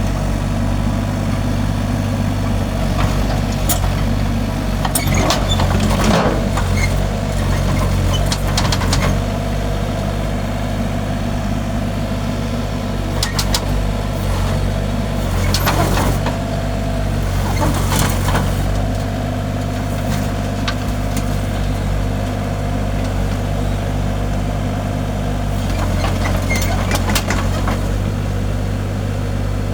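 Diesel engine of a Kubota U30S mini excavator running steadily, with a higher steady tone that comes and goes and scattered sharp metallic knocks and clanks.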